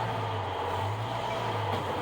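Off-road vehicle engine running steadily at low revs, a low hum that wavers slightly.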